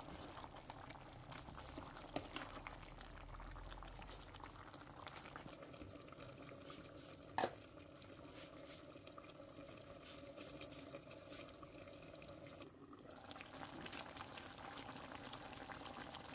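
Pot of brown stew chicken simmering: faint, steady bubbling and crackling. A faint steady high whine sits under it, and a single sharp click comes about seven seconds in.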